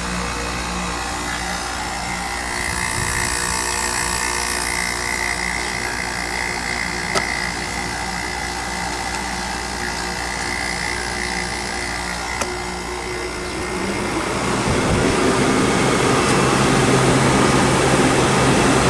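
Gibson 5000 BTU window air conditioner running with its Rechi compressor and fan on, a steady hum and rush of air with a faint high whine through the middle. It grows louder about fourteen seconds in.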